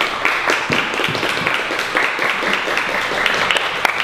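A group of people clapping and tapping with their hands: many quick, sharp strokes, not in unison.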